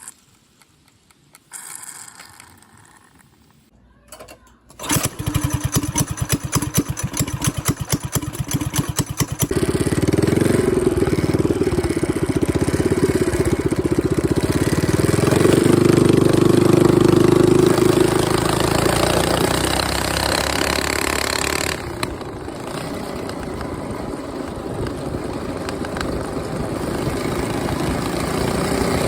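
Small single-cylinder bike engine starting about five seconds in: a few seconds of rapid chugging strokes, then it catches and runs steadily under way. It eases off somewhat past the two-thirds mark, then slowly builds again.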